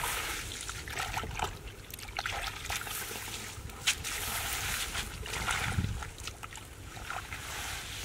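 A hand splashing and sloshing in shallow muddy water and rustling through wet rice straw, in irregular bursts, with one sharp snap about four seconds in.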